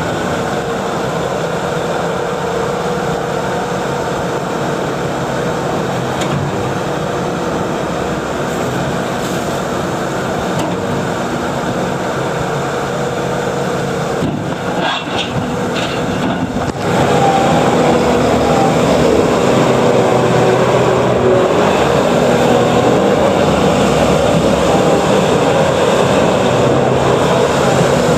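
Bobcat S740 skid steer's 74 hp Doosan diesel engine running steadily, then getting louder about two-thirds of the way through, with a higher wavering whine added.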